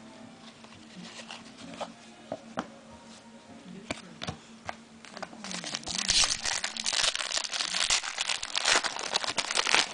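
Plastic foil trading-card pack wrapper being crinkled and torn open by hand, starting about halfway in after a few light clicks of card handling.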